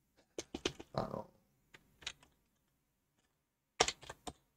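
Computer keyboard keystrokes: a few scattered key presses, then a quick run of them near the end, while moving through code in the vim text editor.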